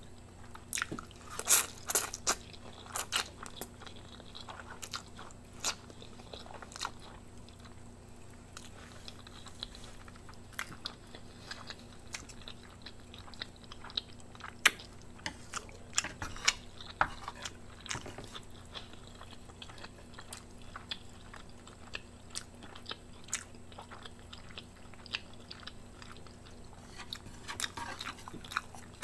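Close-miked chewing and mouth sounds of a person eating Indomie mi goreng instant noodles: a string of wet clicks and smacks, loudest about two seconds in and picking up again near the end.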